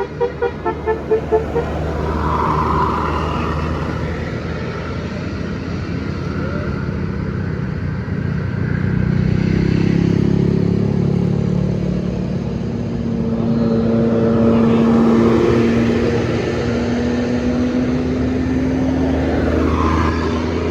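A bus's telolet horn plays a quick run of musical toots that ends about a second and a half in. Then heavy vehicles pass one after another, their engines swelling and fading, with the engine note rising slightly as one goes by near the middle.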